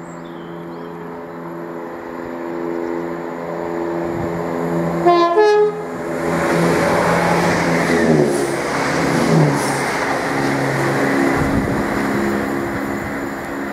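Chiltern Railways Class 168 diesel multiple unit approaching with its underfloor diesel engines running, sounding a short horn blast about five seconds in. It then runs in close by with a loud rumble of wheels and engines, the engine note dropping in pitch as it passes.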